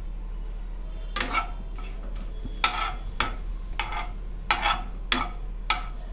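A steel spoon scraping and clinking against a nonstick kadai while stirring whole spices in oil. It makes a series of sharp, short strokes, roughly two a second and unevenly spaced, starting about a second in.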